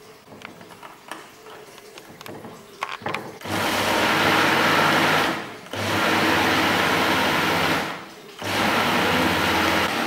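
Electric blender running in three bursts of a couple of seconds each, chopping banana peels in water into a liquid. A few light clicks and knocks come before the first burst.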